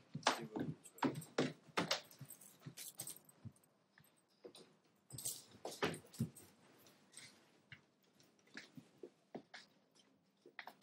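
Faint footsteps, shuffling and small knocks of people moving about a room and sitting down. They come thickly in the first two seconds and again around five to six seconds in, with only scattered taps in between.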